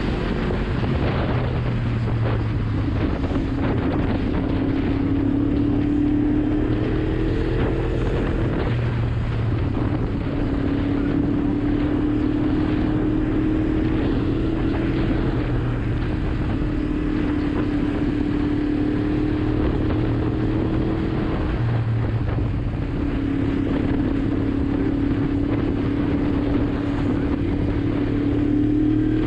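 Yamaha MT-10's crossplane inline-four engine running at a steady cruise under a constant rush of wind over the helmet microphone. The engine note shifts in pitch a few times: near the start, about a third of the way through, and again about three-quarters through.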